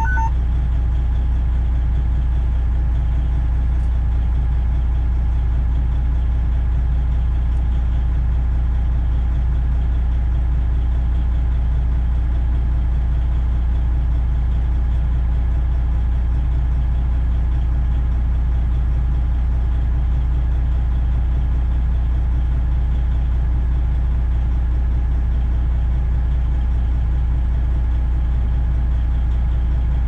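Semi truck's diesel engine idling steadily, a constant low rumble heard from inside the cab.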